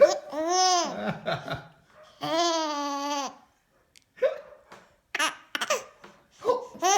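Baby laughing in long high-pitched squeals, broken by short, sudden hiccups. The baby has hiccups and laughs through them.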